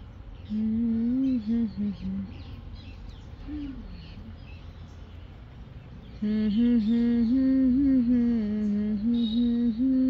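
A woman humming a slow tune in long held notes. She breaks off after about two seconds, with one falling note in the middle, and picks the tune up again, louder, about six seconds in. Faint high chirps sound in the background.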